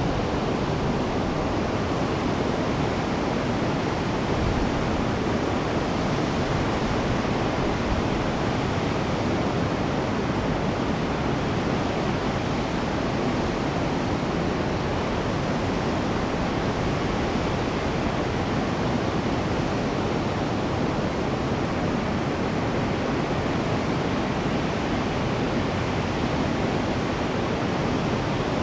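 Steady rush of river water pouring over a weir and churning white over the rocks below it.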